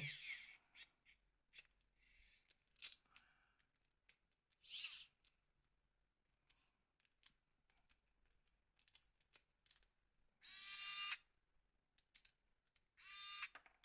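Mostly near silence, broken by faint scattered clicks and three short scraping sounds (about five seconds in, about eleven seconds in, and near the end) as parts of an old NEC mobile phone are handled and pried apart during disassembly.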